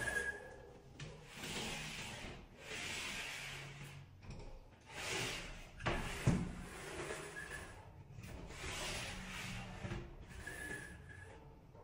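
Sliding cabinet doors made of porcelain floor tile being slid open and shut along their track, a series of scraping swishes about a second each. A sharp knock about six seconds in is the loudest sound.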